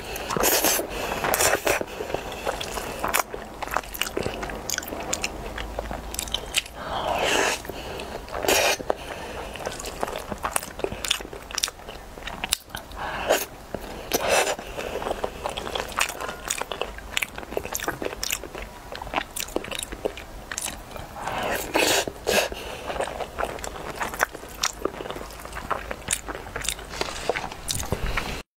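Close-miked eating of saucy eggplant braised rice: wet chewing and lip-smacking with many short mouth clicks, and a few longer, louder slurps as mouthfuls are sucked in, one right at the start.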